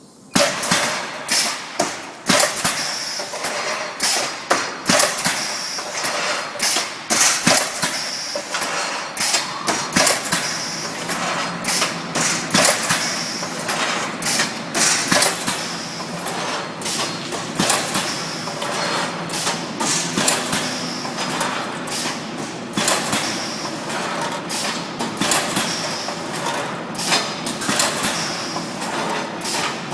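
ASK-500.4T reinforcing-cage machine running, starting abruptly with a loud knock. A steady mechanical whir carries on under frequent, irregular metallic knocks and clatter.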